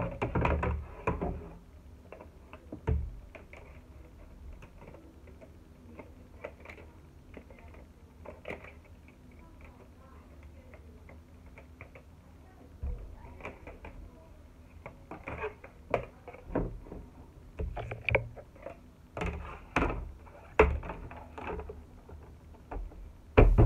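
Hard plastic parts of a Bakugan battle arena being handled and fitted together, in irregular knocks and clatters. There is a cluster at the start, a quieter stretch in the middle, and more frequent knocks in the second half.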